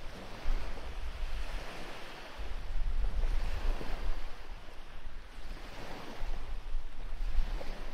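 Wind gusting on the microphone: a low, uneven rumble that swells about half a second in and again from about two and a half seconds on, over a steady hiss.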